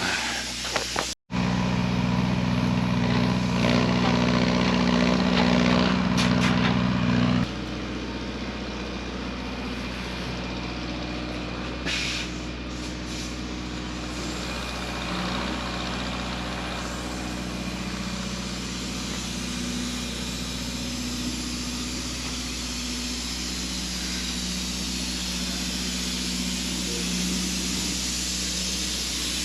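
Heavy equipment engine running steadily with a hiss over it, louder for the first several seconds and then dropping to a quieter, even drone.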